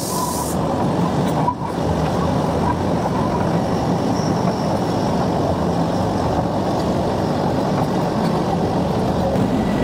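Darjeeling Himalayan Railway narrow-gauge toy train running, a steady rumble of engine and wheels.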